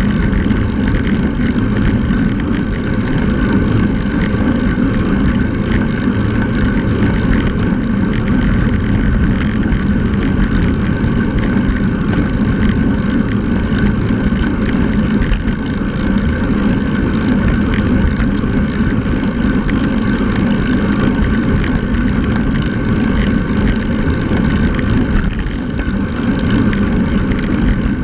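Wind rushing over the microphone of a handlebar-mounted action camera on a moving road bike, with tyre noise on asphalt, loud and steady.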